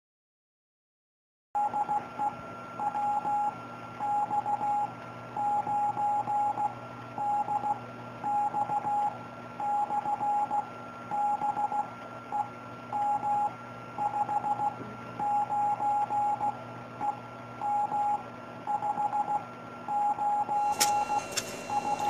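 Morse code: a single tone keyed in short and long beeps, dots and dashes, over light radio hiss and a faint steady higher tone. It starts after about a second and a half of silence.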